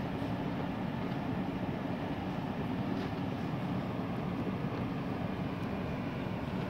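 Steady low background rumble, even in level, with no meows or other distinct sounds standing out.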